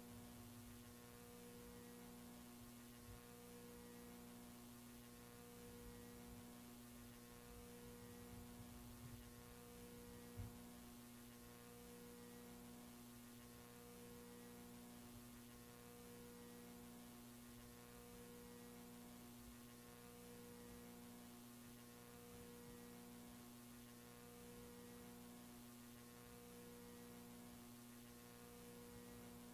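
Near silence with a faint electrical hum: several steady tones, one of which pulses on and off about every one and a half to two seconds. A single faint click comes about ten seconds in.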